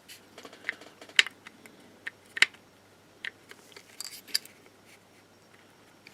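A handful of small, sharp plastic clicks and taps, spread irregularly, as a model locomotive body is handled and pressed down onto its chassis.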